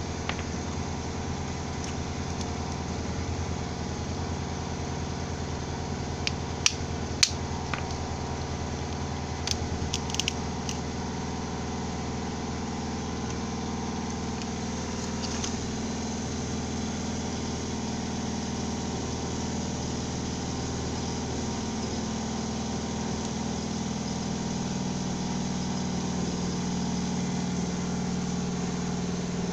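An engine running steadily, a low even hum, with a few sharp clicks about six to ten seconds in.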